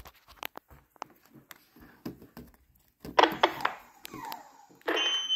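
Faint clicks of a hand mic's plug going into a Baofeng UV-82 radio. About three seconds in, a Fisher-Price toy workshop bursts into electronic sound effects, including a short falling tone, and its tune starts near the end. Radio interference from the transmitting radio is setting the toy off; nobody has pulled its levers.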